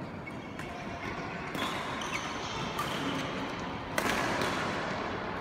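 Badminton rackets hitting a shuttlecock during a rally: sharp hits about a second and a half in and a louder one about four seconds in, echoing in a large hall.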